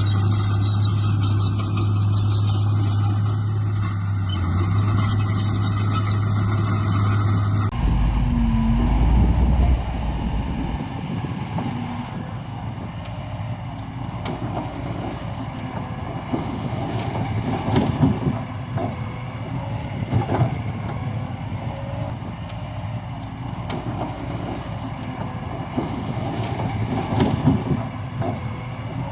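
Heavy construction machinery at work. A diesel engine runs steadily under load, then the sound changes abruptly about eight seconds in to a quieter engine rumble with scattered metallic clanks and knocks.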